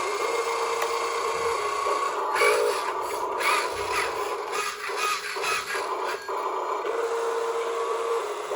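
Small electric motors and gearboxes of radio-controlled models whining steadily, with a few seconds of rough scraping in the middle.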